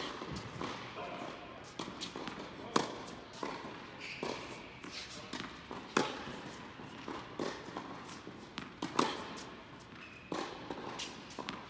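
Tennis ball struck hard by a racket in a baseline rally: four sharp hits about three seconds apart, with softer ball bounces on the court in between, echoing in an indoor tennis hall.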